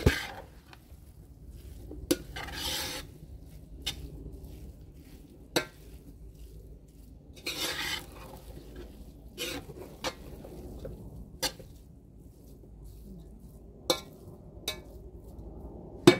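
Metal spoon stirring and turning fried rice in a large metal pot: scattered knocks and clinks of the spoon against the pot, with a couple of longer scraping rustles as the rice is turned over.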